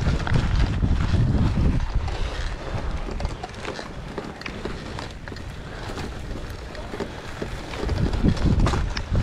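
Wind buffeting the microphone during a Trek Marlin 5 mountain bike ride, strongest at the start and again near the end. Underneath are tyre noise and scattered clicks and rattles from riding over gravel and rocks.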